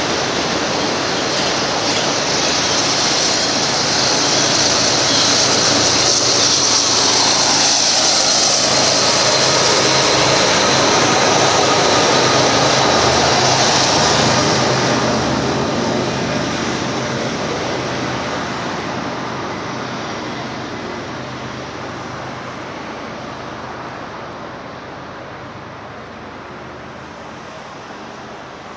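Union Pacific double-stack container train rolling past: a steady rush and rumble of wheels on rail that builds for the first dozen seconds, then fades away as the end of the train moves off.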